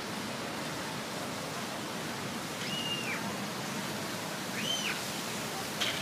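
Fountain water jets and a large water-cannon spray splashing into a pool: a steady rushing hiss of falling water. Two short high chirps cut through it, about halfway and again later.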